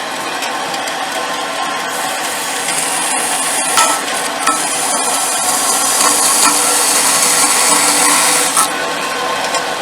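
Bandsaw cutting through a blesbok horn: a steady hissing cut that grows stronger about three seconds in and eases off near the end.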